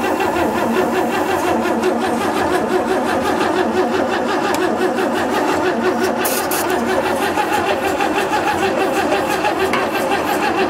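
Starter cranking the Chevrolet truck's gasoline straight-six steadily without it catching, in an even, rapid rhythm. The engine is not getting fuel, which the owners put down to a fuel pump that has quit.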